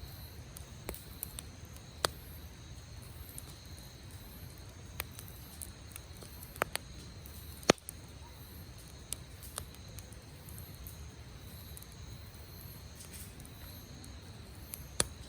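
Wood campfire crackling: sharp, irregular pops and snaps over a low steady rumble, with one loudest pop about halfway through.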